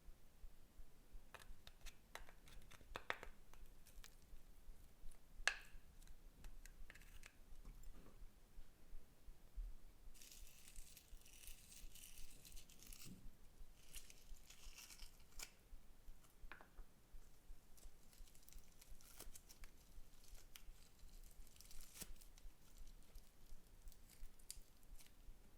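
Clear slime being handled and pulled apart by hand, making faint sticky clicks, crackles and small tearing sounds, with two longer hissing stretches near the middle.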